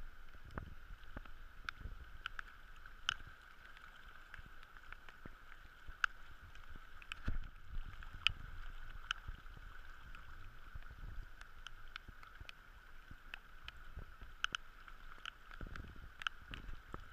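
Floodwater sloshing and lapping in a rainstorm, with a steady hiss and many sharp, irregular ticks of raindrops hitting the camera housing.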